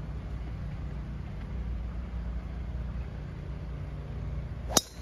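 Golf driver striking a teed ball: a single sharp crack near the end, over a steady low background rumble.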